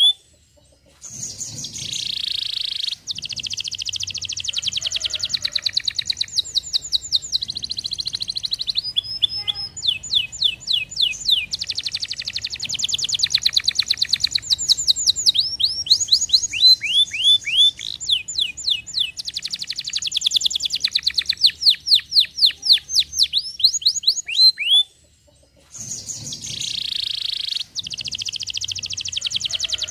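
Domestic canary singing a long song of fast trills, each phrase a rapid run of the same note repeated at a new pitch, with two short pauses.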